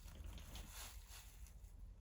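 Faint crinkling rustles of a plastic bag being batted and pushed, a few soft brushes in the first second and quieter after.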